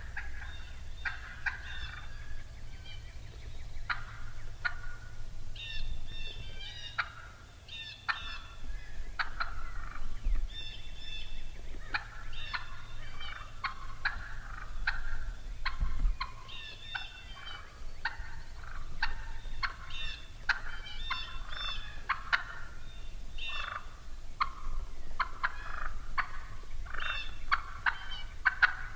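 Wild turkeys calling almost without pause: irregular volleys of sharp clucks mixed with yelping notes, the excited cutting of a hen turkey.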